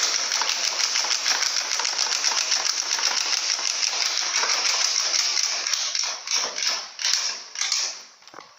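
Motorcycle with a loud aftermarket exhaust running hard: a dense, rattling exhaust noise that starts abruptly, then breaks up and dies away near the end.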